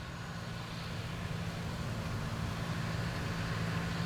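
Steady low engine hum from a distant motor, slowly growing louder.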